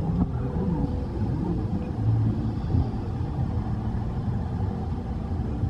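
A steady low rumble aboard a small ride boat drifting along a shallow water channel, with a few faint whining tones near the start.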